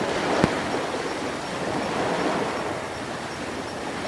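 Steady, even rushing noise, with a single sharp click about half a second in.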